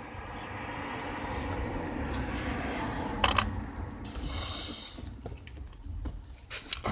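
Scraping and light clicking of the RX7's plastic steering-wheel horn trim being worked at by hand, with a short rustling hiss about four seconds in.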